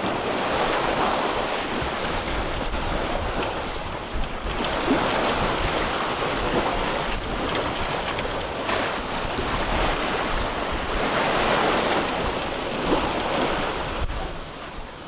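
Open-ocean waves and rushing water around a sailboat under way, with wind buffeting the microphone; the rush swells and eases every few seconds.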